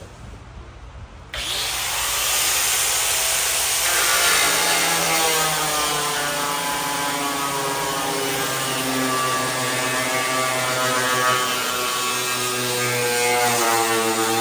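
Corded angle grinder with a cut-off wheel starting up about a second in and cutting through the sheet-steel side of a pickup bed: a steady hiss of cutting over a motor whine whose pitch dips and rises as the wheel bites into the metal.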